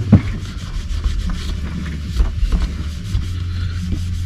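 Cloth rubbing over a plastic RC car fuel tank in many short, quick strokes, drying it after cleaning so foil tape will stick, with a single knock just after the start.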